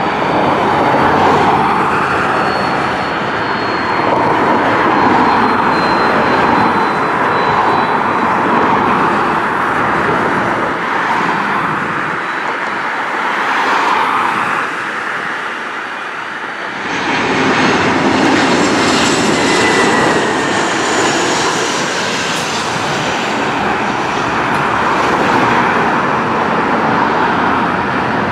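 Jet airliner engines running at an airport, a steady rumble with a high whine that slowly falls in pitch over the first several seconds, mixed with road traffic from an adjacent highway. The sound changes about two-thirds of the way through.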